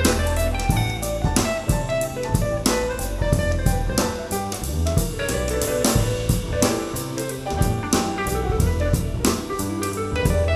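Instrumental jazz-flavoured music with drum kit, bass and guitar at a steady beat, heard as played back through an in-ear monitor for a sound comparison.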